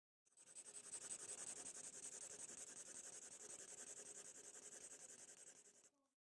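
Faint, steady scratching noise with a bright hiss, starting just after the start and cutting off shortly before the end.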